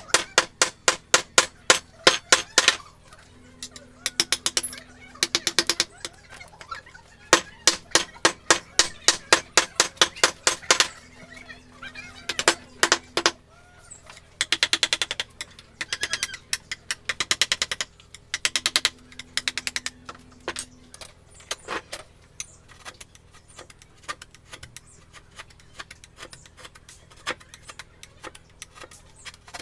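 Mallet tapping a carving chisel into wood, in quick runs of sharp taps about three to four a second with short pauses between runs. The taps become lighter and sparser in the last third.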